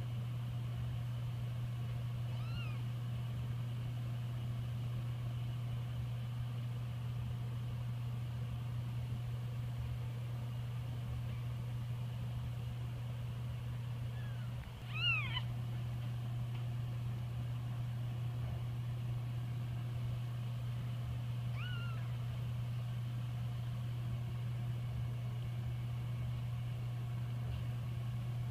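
Young kittens mewing in three short, high calls, the middle one the loudest, over a steady low hum.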